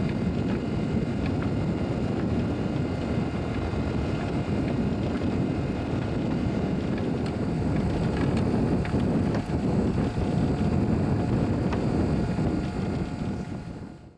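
12 V electric net hauler running steadily as it pulls a fishing net aboard, a continuous motor hum over a low rumble of wind and water. The sound fades out near the end.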